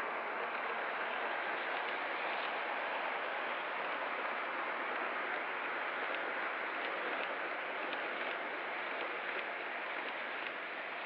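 O scale model freight cars, a string of Santa Fe reefers, rolling past on metal track: a steady rolling rumble and hiss with faint, scattered clicks from wheels crossing rail joints.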